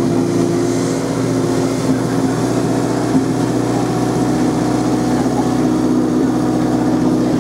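A small engine running steadily at one speed, a constant low hum.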